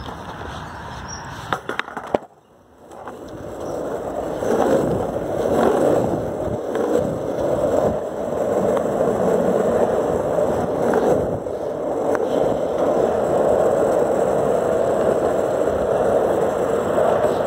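Skateboard wheels rolling fast on rough asphalt, a steady rumble that builds from about four seconds in and holds. A few sharp clacks come just before the rumble, with a brief quiet moment between them.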